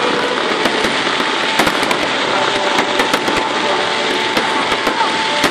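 Aerial fireworks bursting in quick succession: a continuous crackle and hiss of shells, with sharp pops at irregular intervals.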